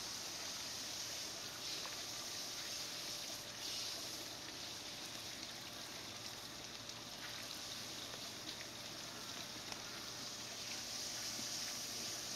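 Steady, quiet hiss of water running and spraying from a hose, with a few faint ticks.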